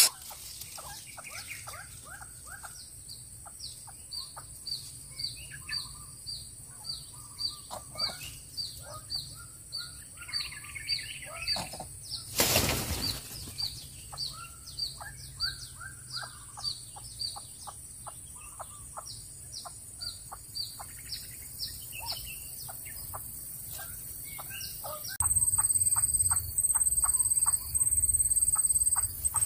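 Birds chirping: a long series of short, high, falling chirps, two to three a second, with lower chirps mixed in. A brief loud rustle about twelve seconds in, and a louder, steady, pulsed high-pitched buzz joins near the end.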